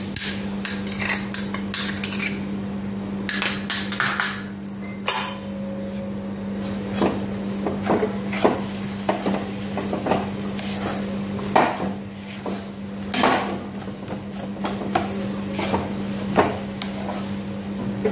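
Wooden spatula scraping and knocking against a metal kadhai while roasted semolina is mixed with cream, in irregular strokes, over a steady low hum.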